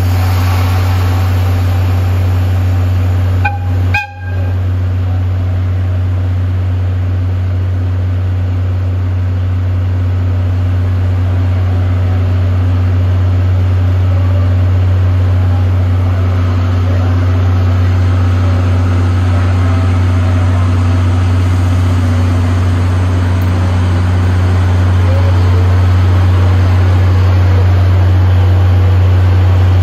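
DE10 diesel locomotive's V12 diesel engine running with a steady low hum as the locomotive creeps up to the coaches for coupling, getting a little louder near the end. The sound breaks off briefly about four seconds in.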